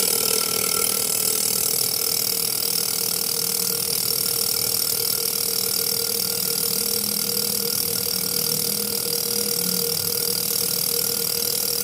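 Fuel injector cleaning and testing machine firing the 4A-FE's fuel injectors: a steady buzzing hum over a hiss of spraying fluid, switched on suddenly just before and running unchanged.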